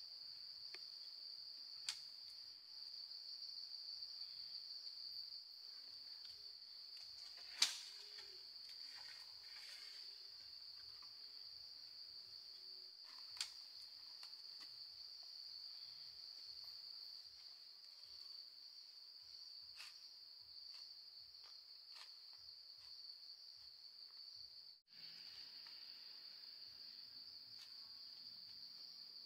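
Steady high-pitched chorus of insects in the forest, with a few sharp knocks now and then, the loudest about seven and a half seconds in.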